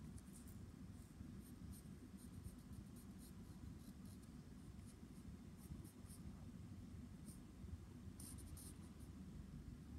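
Pencil scratching faintly on a sheet of paper in short sketching strokes, with a busier run of strokes about eight seconds in, over a low steady room hum.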